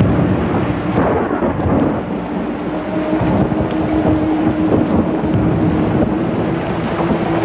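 Thunder rumbling and crackling with rain, loud and irregular, over a faint held musical tone.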